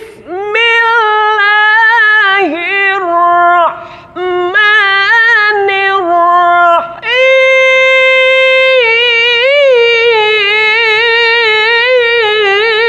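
A man singing qori-style Quran recitation in a high head voice, with the pressure placed toward the head. He sings several melodic phrases with short breaths between them, holds one long steady high note about halfway through, and ends on wavering melismatic turns.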